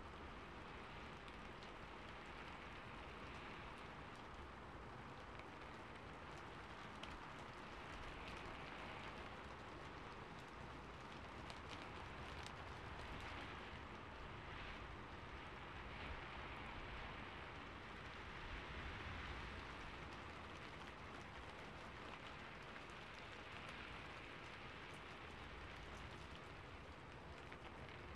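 Rain falling on a rooftop: a faint, steady hiss of drops with scattered individual drop ticks.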